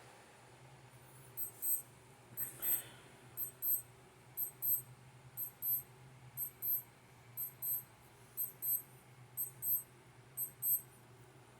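High-pitched electronic double beep, repeating about once a second, typical of an alarm beeping.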